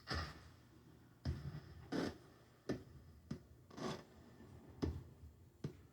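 A series of about eight short, soft pops, irregularly spaced roughly a second apart.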